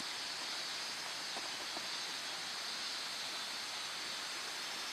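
Steady rushing of running water from a nearby stream, with a couple of faint ticks about a second and a half in.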